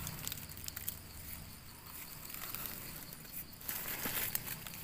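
Faint, irregular scraping and small clicks as a knife blade scrapes soil off freshly dug Amanita mushroom eggs held in the hand, a little busier about four seconds in.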